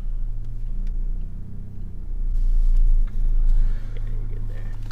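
Engine and exhaust of a 2015 Volkswagen GTI with a stage 2 tune and turbo-back exhaust, heard from inside the cabin while driving. It is a steady low drone that grows louder about two seconds in and dips briefly a second later.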